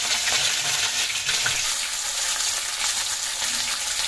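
Fish pieces shallow-frying in hot mustard oil in a kadai: a steady sizzle with many small pops and spits.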